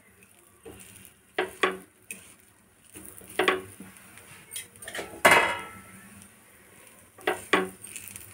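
Steel spatula scraping and knocking on a dosa pan while potato filling is spread over the dosa: about six separate clinks and scrapes, the loudest about five seconds in with a short ring.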